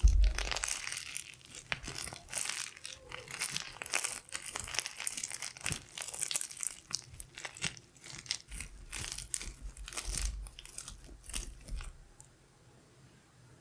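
Glitter slime being squished and worked by hand close to the microphone: dense crackly clicks and crinkles with occasional soft handling thumps, stopping about twelve seconds in.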